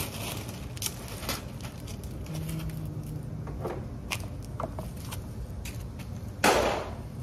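Hand tools being gathered and handled: scattered light clicks and knocks, with a short scraping rustle about six and a half seconds in.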